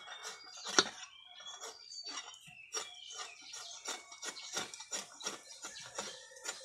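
Steel hand saw rasping through a carabao's horn in short, uneven strokes, about three a second, the sharpest about a second in; birds chirp faintly in the background.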